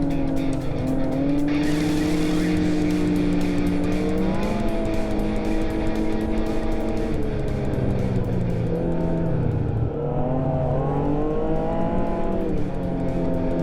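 Yamaha-built 1049 cc four-stroke triple of a 2014 Arctic Cat snowmobile running under way, its engine note rising and falling as the throttle changes: it steps up about four seconds in, sags a few seconds later, climbs again and eases off near the end.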